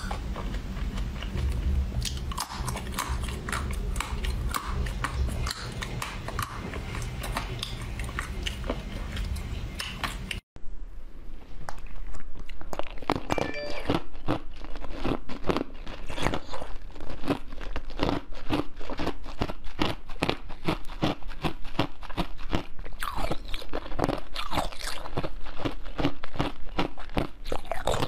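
Close-miked crunching and chewing of ice, with many quick crisp bites. The sound drops out briefly about ten seconds in, then the crunching resumes louder and denser.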